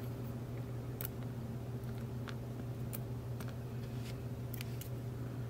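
Faint, scattered light clicks of metal tweezers setting small brass lock pins into a pin tray, about six ticks spread over several seconds, over a steady low hum.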